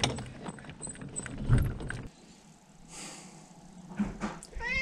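Scattered metal clicks and clinks from a trailer hitch and its safety chains being handled, stopping abruptly about two seconds in. Near the end a domestic cat starts a long meow.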